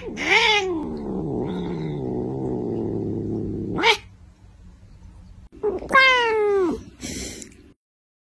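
Domestic cat vocalising: a short meow runs into about three seconds of loud, wavering, engine-like rumbling purr, then after a pause a second meow falling in pitch.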